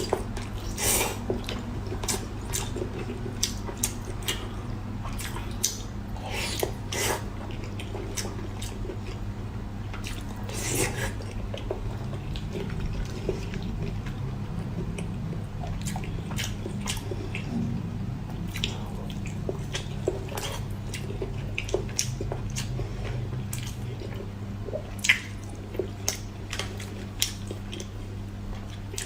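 A person chewing food close to the microphone: a long run of irregular wet mouth clicks and smacks. A steady low hum runs underneath.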